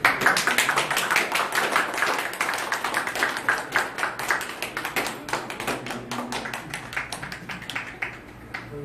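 A small group of people clapping, thickest in the first few seconds, then thinning out and stopping near the end.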